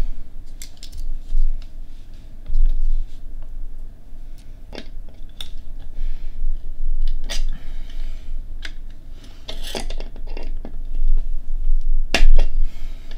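Small hand tools clicking and scraping on metal hardware while a ground-bond wire's terminal is crimped and its nut is tightened down. Scattered short clicks, with louder rasping scrapes about ten and twelve seconds in.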